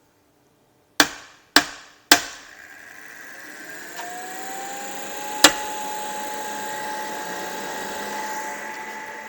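Three sharp knocks on the cold room's stalled cooling fan unit, after which the fans spin up with a rising whine that settles into a steady hum. One more sharp knock comes about halfway through. The knocks are the way the stopped fans get restarted.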